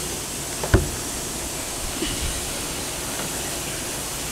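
Deck hatch lid on a catamaran's foredeck pushed shut with a single sharp thump about three-quarters of a second in, over a steady background hiss.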